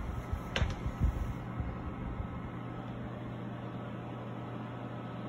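Steady mechanical hum with a constant low tone, like a running fan. In the first second and a half come a few low bumps and one sharp click.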